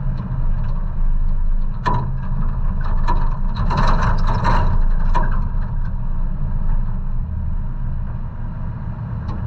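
A lifted 1990 Toyota 4Runner's engine running with a low, steady rumble as the truck drives a rough dirt trail, with a cluster of sharp knocks and rattles from about two to five seconds in.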